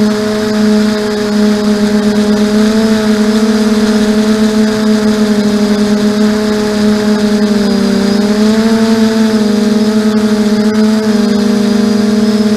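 Quadcopter's electric motors and propellers whining steadily as picked up by its onboard camera: several close tones that shift slightly with the throttle, wavering most about eight to nine seconds in.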